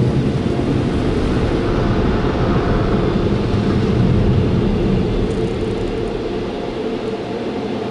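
PDQ Tandem automatic car wash on its flash-dry pass: the dryer blowers and rinse spray give a steady rushing roar with a low rumble, heard from inside the car. It eases off and thins out near the end.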